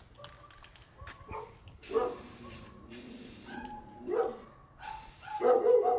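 Aerosol can of Rust-Oleum spray paint hissing in three short bursts. A dog barks between them, loudest near the end.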